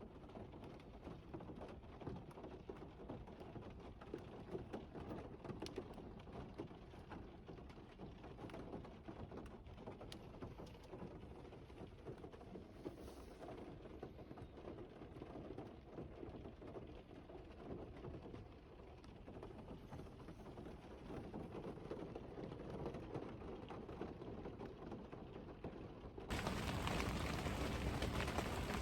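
Steady rain falling, with many small drops ticking on a surface. Near the end the rain noise abruptly becomes louder and brighter.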